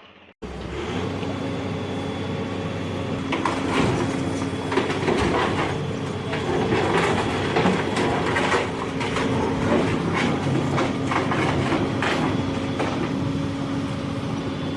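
Heavy machinery running steadily with a held drone, with many short metallic clanks and rattles over it. It starts abruptly after a cut.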